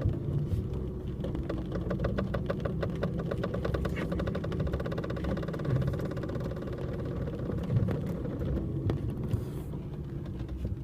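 KYB strut mount bearings creaking as a rapid, continuous run of ticks over a steady low rumble. The bearings are already creaking on their third day in service.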